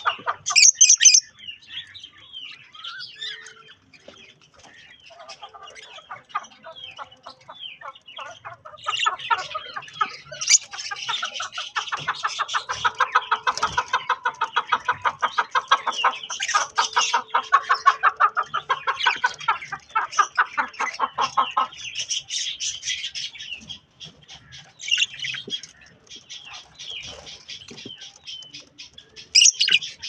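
Budgerigars chirping and chattering in fast, busy runs, thickest in the middle and thinning out after about two-thirds of the way, with a few sharp louder chirps near the start and the end.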